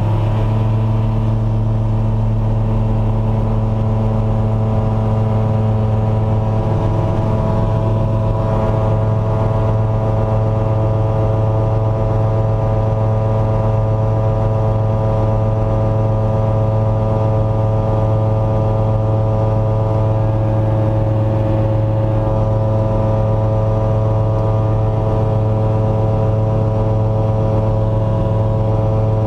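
Sky Arrow light aircraft's Rotax 912 flat-four engine and pusher propeller running steadily at takeoff power through the takeoff roll, liftoff and climb, heard from inside the cockpit as an even, loud drone.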